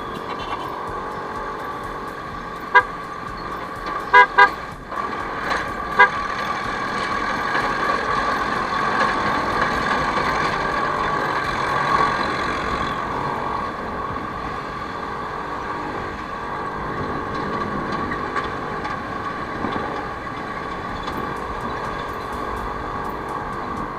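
Steady traffic and riding noise from a moving scooter, with short vehicle horn toots: one about three seconds in, a quick double toot about four seconds in, and another at six seconds.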